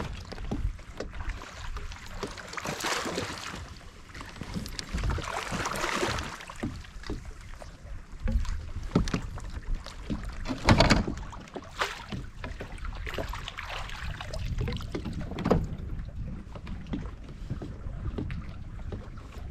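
Water and handling noise from a fishing kayak on the lake, with a few sharp knocks about halfway through and a low wind rumble on the microphone.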